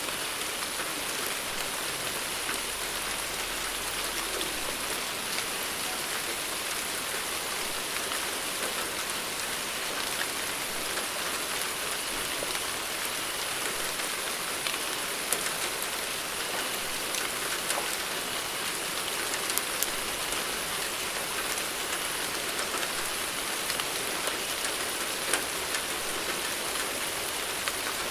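Steady rain falling without thunder: an even hiss with scattered sharp ticks of individual drops.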